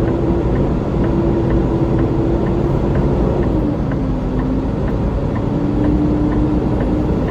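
A road vehicle on the move: a steady engine and road drone with a hum that drops in pitch about three and a half seconds in, then rises partway again about a second later.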